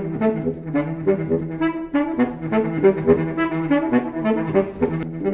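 Baritone saxophone playing a quick line of short, low notes.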